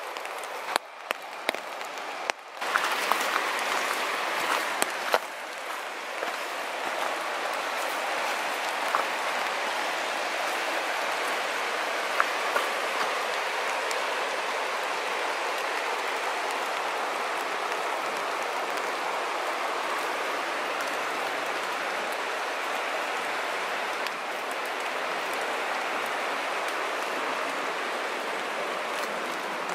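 Steady hiss of water noise, stepping up in level about two and a half seconds in and then holding even, with a few sharp taps of footfalls on the wet trail in the first few seconds.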